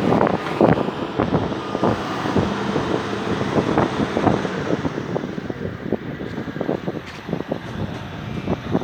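Excavator engine running, with frequent short knocks and clanks, while wind buffets the microphone.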